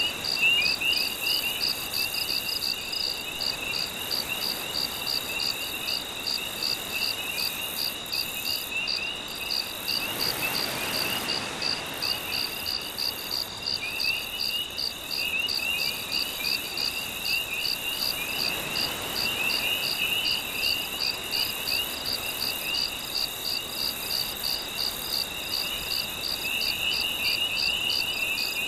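Night chorus of crickets: one chirping in a steady, even pulse, another trilling in uneven runs that pause about a third of the way in. Two soft swells of wave wash rise beneath it, around a third and two-thirds of the way through.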